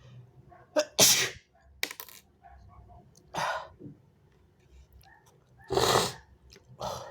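A person sneezing about four times in a row, wet and snotty sneezes. The loudest come about a second in and around six seconds, with shorter ones between and near the end.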